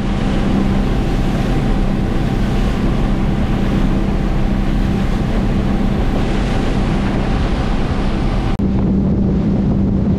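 A boat's engine running steadily under way, with wind on the microphone and water rushing past. The sound changes abruptly about eight and a half seconds in.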